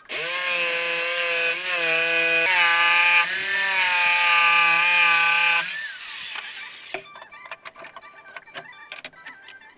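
Electric jigsaw cutting through a clamped board: a loud, steady motor whine whose pitch dips briefly twice as the blade loads. About six seconds in the saw is switched off and its whine glides down, followed by a few light clicks and knocks.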